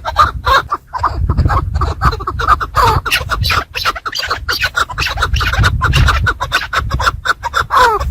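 Chukar partridge (chakor) calling among a dense run of quick scratching and rustling noises, with low thuds underneath.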